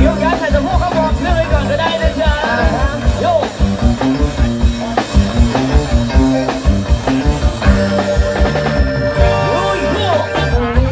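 Thai trae wong brass band playing a lively song, with a steady drum beat under the melody.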